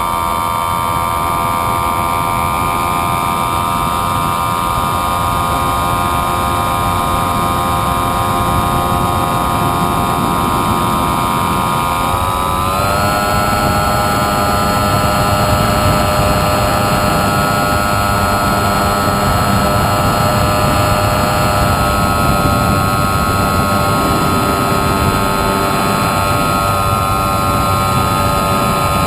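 Model airplane's motor and propeller running with a steady whine over a rushing noise, the pitch rising about 13 seconds in and then holding steady.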